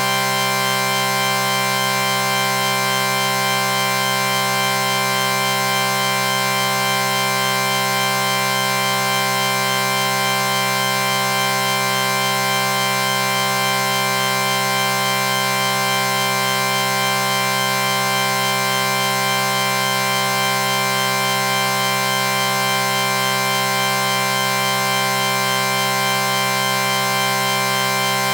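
A chord sound effect held without a break: several steady tones sounding together, unchanging in pitch and loudness throughout.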